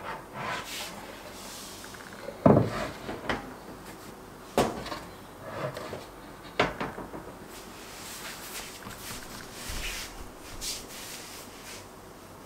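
Wooden kitchen cabinet door and drawer front of lauan plywood being fitted and pushed shut against the cabinet: three sharp knocks of wood on wood, the loudest about two and a half seconds in, with lighter handling and rubbing sounds between.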